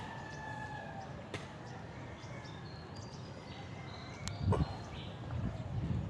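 Outdoor ambience with faint, scattered bird calls, and a knock followed by a short low rumble about four seconds in.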